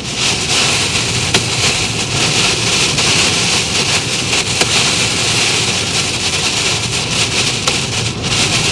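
Heavy wind-driven rain beating on a car, heard from inside the cabin while driving: a dense, steady hiss with scattered sharp ticks of drops striking.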